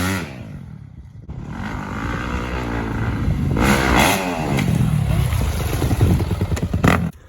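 85cc dirt bike engine revving: it falls away at first and drops low about a second in, then revs up and accelerates with a rising, wavering pitch until it cuts off abruptly near the end.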